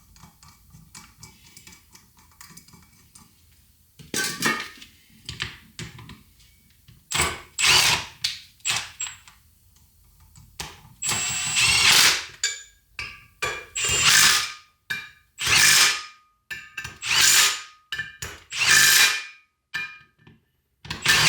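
Faint clicking, then a power tool running tight the bolts that join the new rotor and the front hub, in short loud bursts a second or two apart, some with a high whine.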